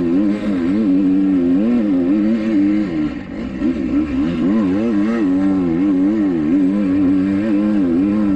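2021 Kawasaki KX250X four-stroke 250 dirt bike engine under way, its revs rising and falling over and over as the throttle is worked, with a short drop in revs and loudness about three seconds in.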